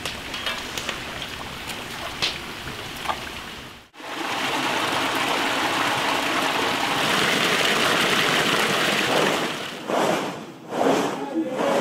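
Hot oil sizzling faintly as kapse, fried dough pastries, deep-fry in a large wok, with a few small ticks. After a cut about four seconds in, a loud, steady rush of water pouring from two stone spouts into a basin; near the end it gives way to a few rhythmic bursts of sound.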